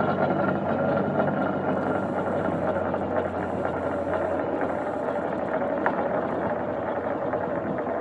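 A heavy diesel engine running steadily with a dense mechanical rumble. Its low hum fades over the first few seconds, and a few faint knocks come through.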